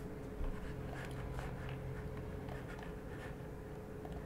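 Faint scattered clicks and light rubbing of a computer mouse and keyboard at a desk, over a steady low hum of room and microphone noise.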